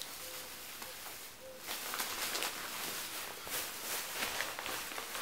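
Faint rustling and handling of clothing over quiet room tone.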